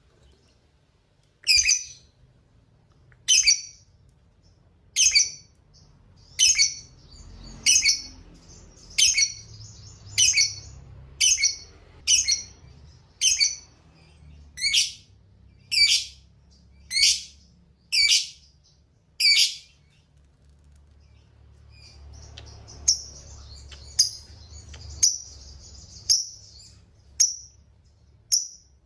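Lovebird calling: about fifteen sharp, high, loud calls, roughly one a second, with softer chattering between them. About two-thirds of the way in, this gives way to a run of softer twittering broken by a few smaller calls.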